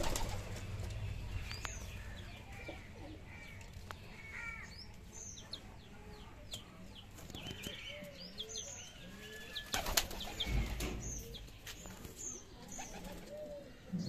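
Pigeons flapping and fluttering their wings, loudest in a burst about ten seconds in, with short high bird chirps scattered throughout.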